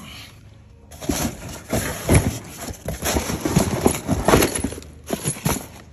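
A cardboard box of parts being grabbed and pulled open by hand: cardboard scraping and rustling with a quick run of knocks, starting about a second in and stopping near the end.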